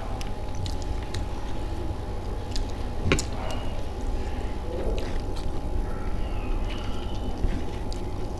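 Eating sounds: chewing, and fingers mixing rice with gravy, with scattered small clicks and a sharper click about three seconds in, over a steady low hum.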